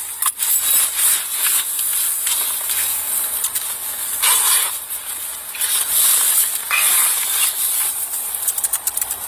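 Rustling and scraping of clothing against a police body-worn camera's microphone over a steady hiss, swelling and fading in irregular bursts as the wearer moves about inside a car.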